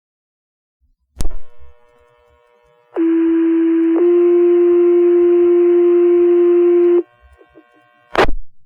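Two-tone sequential paging tones on a fire department radio channel: a low tone for about a second, then a slightly higher tone held for about three seconds, with radio hiss behind them. These alert tones set off the volunteer firefighters' pagers ahead of a dispatch. Short radio squelch clicks come about a second in and near the end.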